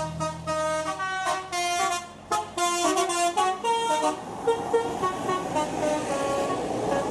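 A bus's Basuri 'telolet' musical air horn playing a quick melody of bright notes, several per second, over the bus's engine. About four seconds in the tune gives way to engine and road noise with a few fainter notes.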